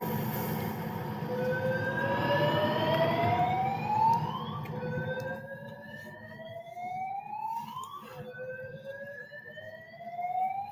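Building fire alarm sounding its evacuation tone: a whoop that rises slowly in pitch over about three seconds, repeated three times, over a low background rumble.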